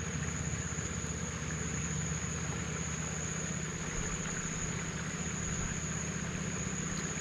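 A small engine idling steadily with an even low throb, under a continuous high-pitched insect drone.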